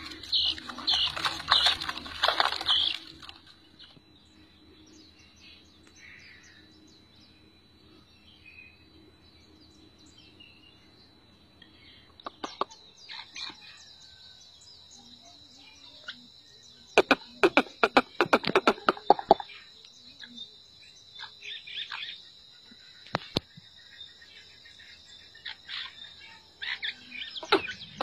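Black francolin chicks peeping: a rapid run of high calls in the first few seconds, then a long quiet stretch, then scattered bursts of calls and clicks through the second half.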